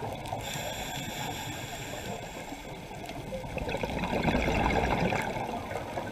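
Underwater sound heard through a camera's waterproof housing: a muffled rushing and gurgling of water. It swells for about two seconds in the middle, as a scuba diver's exhaled breath bubbles out of the regulator.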